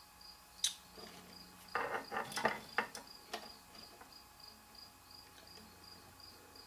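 A cricket chirping steadily, about three high chirps a second, with a short run of sharp clicks and clatter from things being handled on the bench in the middle.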